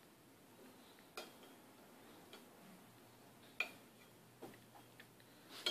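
Metal spoon clinking against a ceramic bowl as jello is scooped out: about seven light, irregular clinks, some with a short high ring, the loudest about three and a half seconds in.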